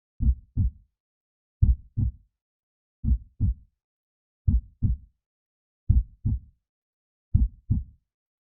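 Heartbeat sound effect: a slow, steady lub-dub, each beat a pair of short low thumps, six beats about 1.4 seconds apart (roughly 42 a minute) with silence between.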